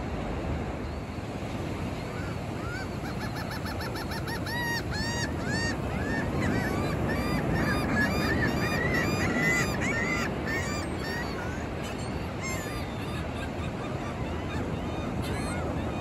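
Seagulls calling in a fast run of short, arched cries, several a second, starting about two seconds in and thinning out after about eleven seconds, over the steady rush of ocean surf.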